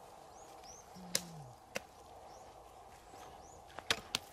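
Hoe chopping into hard, dry cracked mud: a few sharp knocks, two well apart and then a quick cluster of three near the end.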